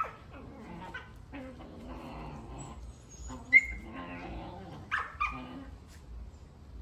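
Young puppies play-fighting, with low growls and short sharp yips; the loudest yip comes about halfway through, and two more follow close together around five seconds in.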